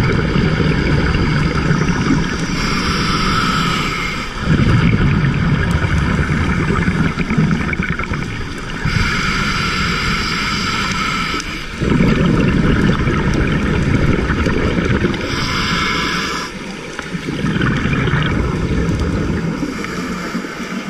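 Scuba regulator breathing heard underwater: a hissing inhale through the demand valve, then a longer rumbling burst of exhaled bubbles, repeating about three times.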